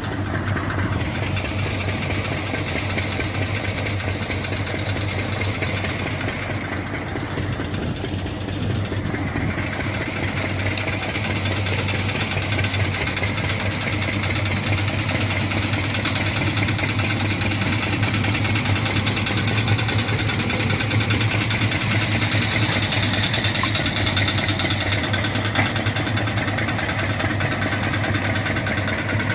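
Groundnut thresher powered by a New Holland tractor's diesel engine, running steadily while peanut plants are fed into it: a continuous engine hum with the thresher's rattling drum.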